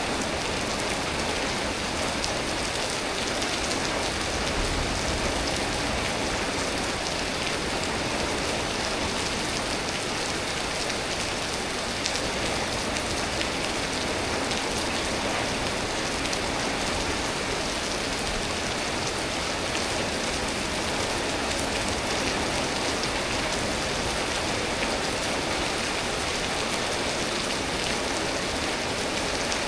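Steady rain falling, an even hiss with no break in it.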